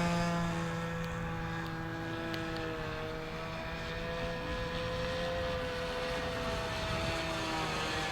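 Engine of a Ben Buckle Super 60 radio-controlled model plane in flight, running steadily with its pitch gently rising and falling as the plane flies about.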